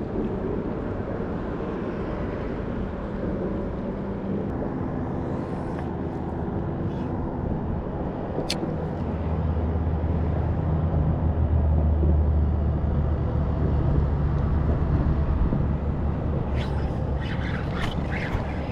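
Road traffic passing on a bridge: a steady rumble of vehicles that grows louder for several seconds around the middle. A single sharp click sounds a little after eight seconds in.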